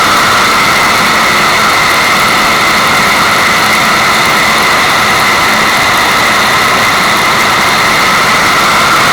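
Loud, unchanging rushing water used as white noise, a continuous hiss without breaks.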